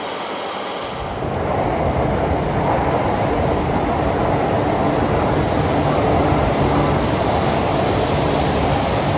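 Shinkansen train running along the platform, a steady rushing rumble that swells about a second in and then holds loud and even.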